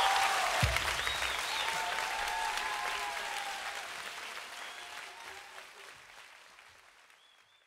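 Concert audience applauding and cheering after a song, with dense clapping and a few voices rising over it. It fades out steadily over several seconds to near silence.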